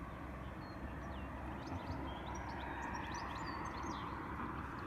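Wild birds chirping and singing in short, scattered calls over a steady background rush.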